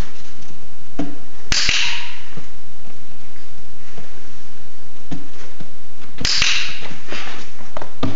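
A dog-training clicker clicks twice, about four and a half seconds apart, each a sharp snap marking the puppy's behaviour on the platform for a treat. Fainter low knocks sound in between.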